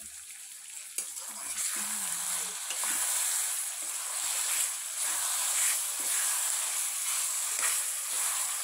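Minced meat frying in hot oil and masala in a kadhai, a steady sizzle, stirred with a steel spoon. The sizzle gets louder about a second in as the meat is turned into the hot pan.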